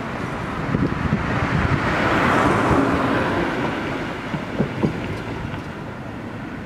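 Street traffic: a car passes close by, its tyre and engine noise swelling to a peak about two to three seconds in and then fading. A couple of short sharp knocks come near the five-second mark.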